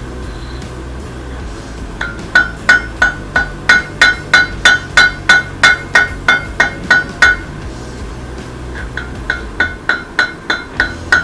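Blacksmith's hammer striking rebar on an anvil, about three blows a second, each blow ringing with a clear metallic tone. After a short pause the blows start again, lighter at first and growing heavier.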